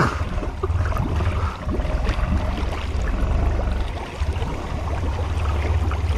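ATVs wading through deep swamp water: a low, steady engine drone under water churning and splashing around the machines.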